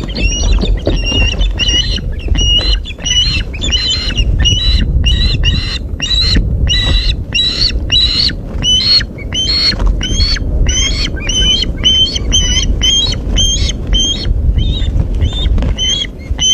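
A bird squawking over and over in short, high calls, about two to three a second, over a steady low rumble.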